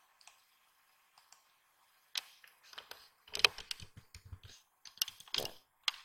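Computer mouse clicks and keyboard keystrokes: a few single clicks, then a quick run of keystrokes in the middle and more clicks near the end.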